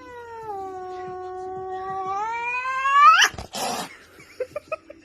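A cat's long, drawn-out yowl that holds level, then climbs sharply in pitch and breaks off about three seconds in, followed by a brief rush of noise.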